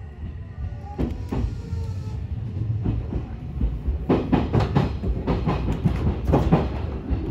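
Electric commuter train wheels running over a set of points, heard from inside the leading car: a steady low rumble with clattering clicks that get louder and come thick and fast from about four seconds in.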